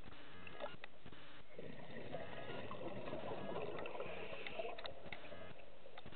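Scuba diver's exhaled breath bubbling out of the regulator, heard underwater: a burst of bubbling starts about a second and a half in and lasts some four seconds.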